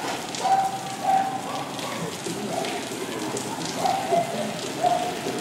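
Steady rain falling on surfaces, with thin splashy streaks through it. Short, steady-pitched notes cut through it about half a dozen times.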